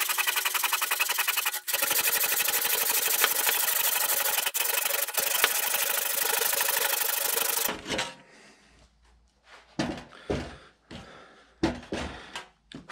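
Panel hand saw cutting through an oak rafter with steady rasping strokes, with a brief break about a second and a half in. The sawing stops about eight seconds in, followed by a few light knocks.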